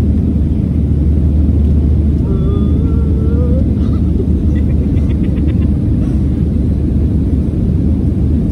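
Steady low drone of a Boeing 737's jet engines and rushing air, heard inside the passenger cabin.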